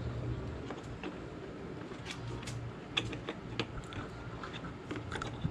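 Scattered clicks and creaks of a plastic car headlight assembly and its wiring connectors being handled and plugged in, the sharpest click about three seconds in, over a low steady hum.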